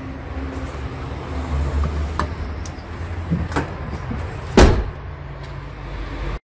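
Haima S5 crossover's tailgate being pulled down and shut: a couple of light clicks, then one loud thump about four and a half seconds in, over a low rumble.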